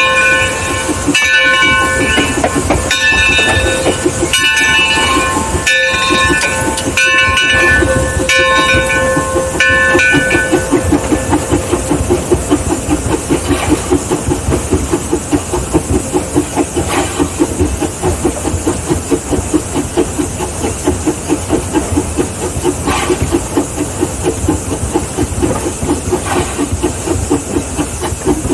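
Mason Bogie 0-6-4T steam tank locomotive heard from its cab. Its bell rings about once a second for the first ten seconds over the running engine. Then the bell stops and the engine runs on with a steady hissing beat of about four a second.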